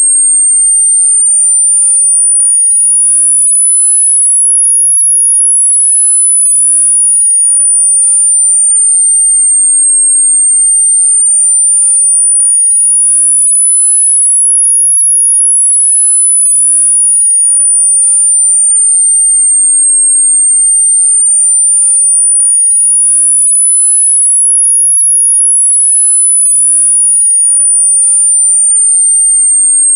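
A single synthesized pure tone, very high-pitched, gliding slowly up and down in a smooth wave, one full rise and fall about every ten seconds, three times over, at a loud, steady level: a variable-sweep tinnitus masking sound.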